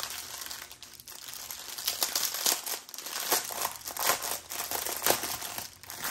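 Clear plastic packaging around a bundle of small drill bags crinkling as hands turn it over and work it open, in an uneven run of crackles.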